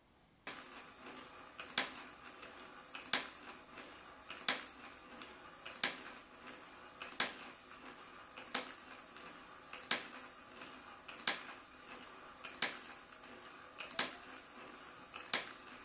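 Small 3D-printed plastic marble machine, driven by a servo modified for continuous rotation, looping steel ball bearings. It starts running about half a second in, with a sharp click about every second and a third and fainter ticks and rattles between.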